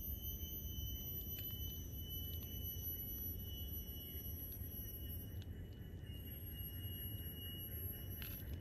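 A steady high-pitched whine with overtones, drifting slightly in pitch, over a low steady rumble, with a few faint clicks.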